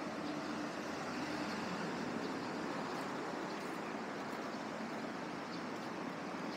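Steady road traffic on a busy city street, an even hiss of passing cars without breaks.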